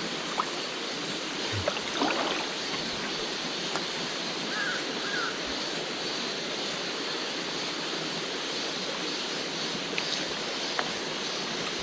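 Valley stream water running steadily, with a few faint clicks and two short faint chirps about halfway through.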